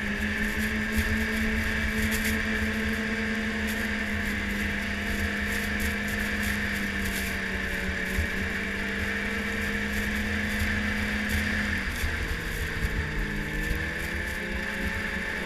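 Yamaha snowmobile engine running steadily at trail cruising speed, with hiss from the track and wind. About twelve seconds in the engine note drops, then climbs again near the end.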